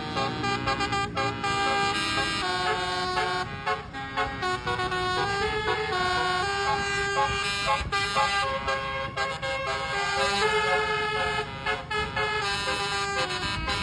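Basuri multi-tone 'telolet' musical horn playing a melody, one held note stepping to the next without pause.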